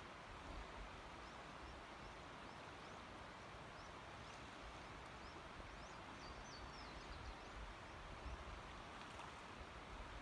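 Creek water running steadily over a shallow riffle, a soft even rush. Faint high bird chirps come through in the middle.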